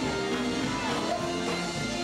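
Live gospel band music: electric guitars playing over a steady beat, with no singing standing out.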